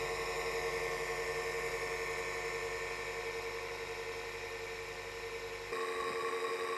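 Electric motor running with a steady whine made of several fixed tones. About six seconds in the sound changes abruptly: the low rumble drops out and a higher tone comes in.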